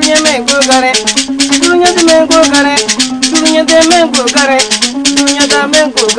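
Bowed gourd fiddle playing a wavering, sliding melody over a fast, even rhythm of a shaken rattle.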